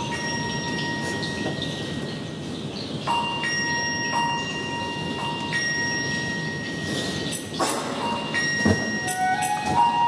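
Tubular chimes struck one note at a time, a second or more apart, each note ringing on. A quick cluster of chime strokes comes about three quarters of the way through.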